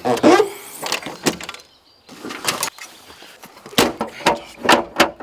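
Irregular metallic clanks and knocks from hands and tools working on an old UAZ off-roader's wheel, with a quieter pause a little before two seconds in.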